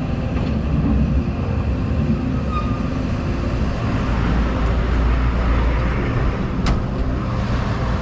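Steady low rumble of heavy vehicle engines at a road construction site, with a single sharp click about seven seconds in.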